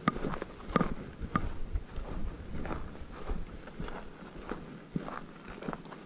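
Footsteps of a person walking on dry dirt ground, about two steps a second.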